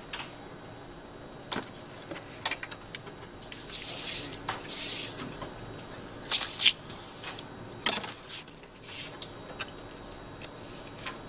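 A sheet of drawing paper being slid and shifted across a desk, giving several rustling swishes, with a few light clicks and taps of drawing tools being handled.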